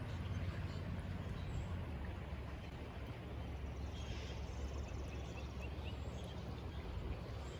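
Steady outdoor background noise with a low rumble, and a few short faint chirps about four seconds in.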